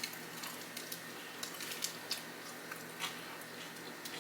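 Close-miked chewing: a person eating, with a few faint, irregularly spaced wet mouth clicks and squishes.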